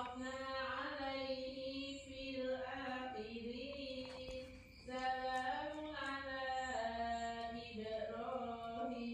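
Background music: a single voice singing a slow, chant-like melody of long held notes, with brief breaks between phrases.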